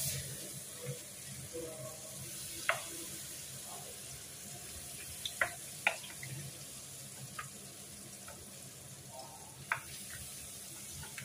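Vegetable fritter (bakwan) batter frying in shallow oil in a pan, a steady sizzle that is loudest at the start as batter is poured in. A few sharp pops or clicks come through it.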